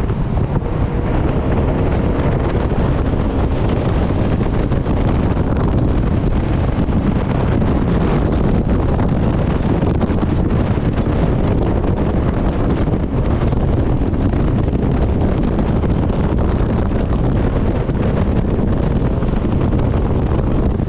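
Heavy, steady wind buffeting the microphone of a jet boat running at speed, with the rush of the boat's engine and water underneath.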